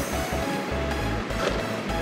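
Background music: held melody notes that change every half second or so over a stepping bass line.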